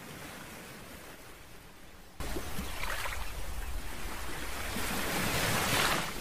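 Small waves lapping and washing over a pebbly shoreline. The sound jumps louder about two seconds in and swells to its loudest near the end.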